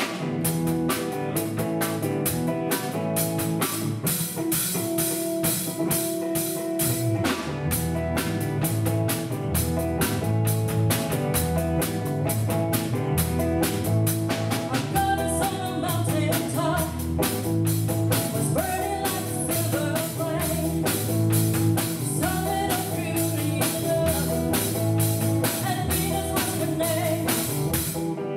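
Live band playing: electric guitar, bass guitar and drum kit keeping a steady beat, with a woman singing lead from about halfway through.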